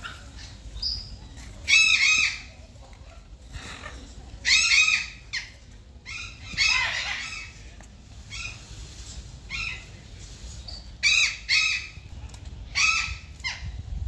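Indian peafowl giving loud, harsh calls, about five short calls spaced irregularly, some in quick pairs.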